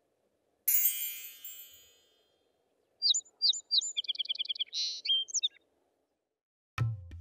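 A bright chime rings out and fades over about a second and a half. Then birds chirp for a couple of seconds: short gliding whistles and a fast trill. Tabla music starts right at the end.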